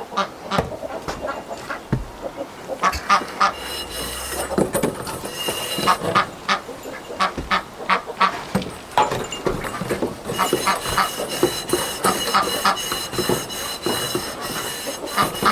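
Green Scotch-Brite pad scrubbing an oiled steel bandsaw band, quick irregular scratchy strokes with squeaks. The band gives a thin high ringing, from about four seconds in and more strongly from about ten seconds.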